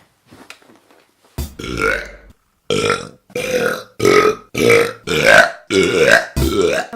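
A man burping loudly: about a second and a half in comes one longer burp, then seven short burps in quick succession, the last few rising in pitch.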